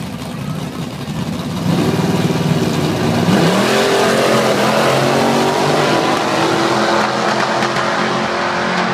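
Two drag-racing cars launching off the start line: engines rumble low at first, then about two seconds in go to full throttle and stay loud, their pitch rising as they accelerate down the strip.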